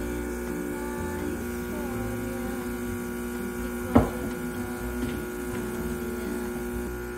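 Gaggia Classic espresso machine's vibratory pump humming steadily as it pulls a shot into the mug, stopping near the end. A single sharp knock about four seconds in.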